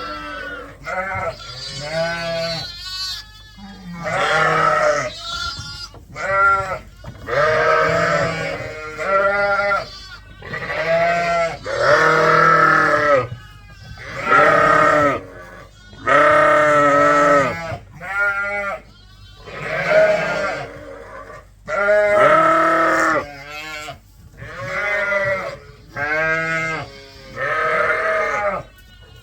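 Sheep bleating: one wavering call after another, about a dozen or more, with barely a pause between them.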